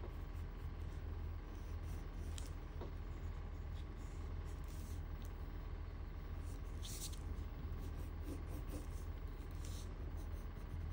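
White Prismacolor Premier colored pencil scratching over marker-coloured drawing paper in short shading strokes, over a steady low hum.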